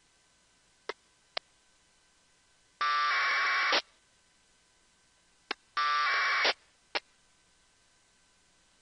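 Two APRS packet bursts received on 144.390 MHz by an RTL-SDR: each is just under a second of harsh two-tone 1200-baud AFSK data, one about three seconds in and one about six seconds in. Short sharp clicks come before and after the bursts, over a faint steady receiver hiss.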